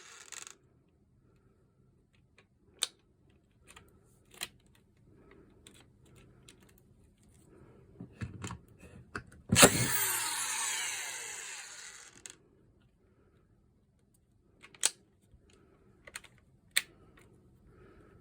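Makita FS454D cordless screwdriver's motor run in one short burst of about two and a half seconds, starting with a sharp click and then winding down. Scattered sharp clicks of the tool being handled come before and after.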